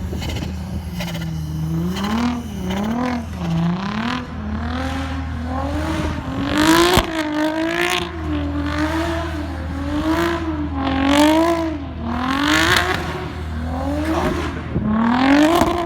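Audi B5 S4's twin-turbo V6 revving hard, its pitch swinging up and down again and again as the car slides in snow, with four loud rushes of noise at the top of the revs. It is loud, and the revving throws fire from the exhaust.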